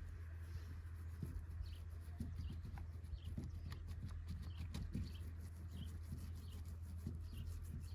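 Light handling sounds, small clicks and rubbing, as a piece of roofing fibre is laid in place, over a low steady hum. Short bird chirps come every second or so.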